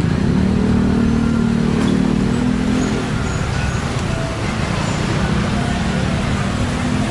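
Road traffic passing close by: a vehicle engine's low hum is strongest over the first three seconds, then settles into a steady traffic rumble.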